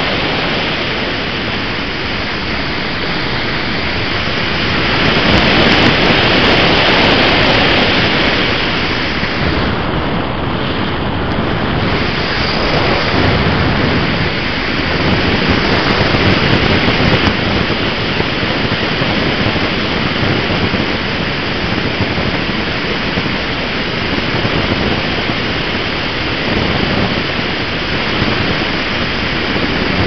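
Steady rush of airflow buffeting a small camera's microphone on a motor glider in flight, swelling and easing a few times.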